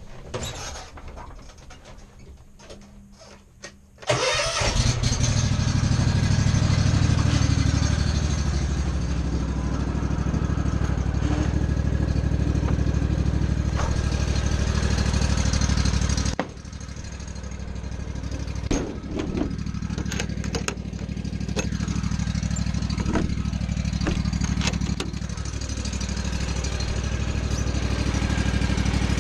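Lawn mower engine starting about four seconds in and then running steadily. Partway through it drops in level and keeps running, with a few clicks and knocks.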